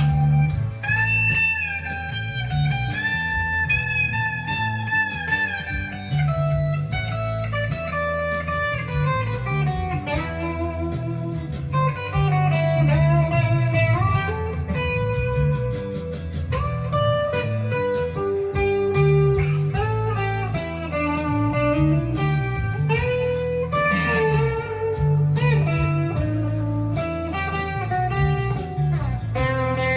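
Jackson Dinky JS22 electric guitar through a Fender Mustang LT25 amp on its '60s Fuzz' channel, playing a single-note lead line of held notes and string bends.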